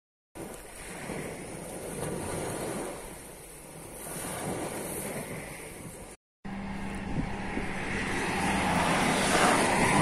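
Sea waves breaking and washing up a pebble beach, swelling twice. After a brief cut, the steady road and engine noise of a moving car, rising in level.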